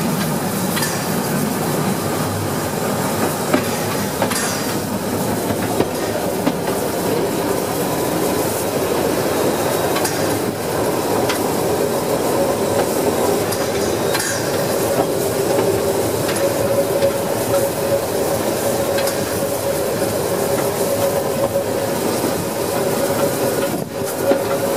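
Narrow-gauge steam train on the move, heard right behind the smokebox of 2-10-2 tank locomotive 99 236: a steady rumble and rattle of wheels on rail with occasional clicks. A steady squeal sets in about halfway through.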